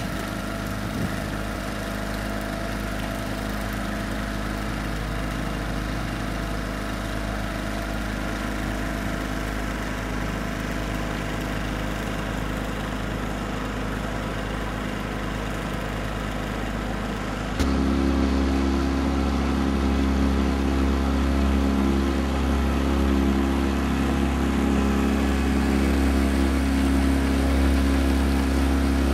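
Outboard motor running steadily at constant speed over a hiss of water and wind. About two-thirds of the way through it abruptly becomes louder and deeper.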